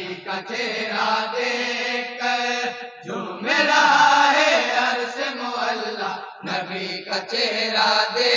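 A group of men chanting a naat in chorus, voices alone with no instruments, in long wavering held notes. The voices break off briefly about three seconds in and come back at their loudest.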